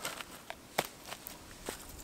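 Pieces of split firewood being handled and set down on charcoal-strewn ground, knocking together: about five short knocks and clicks, the loudest a little under a second in.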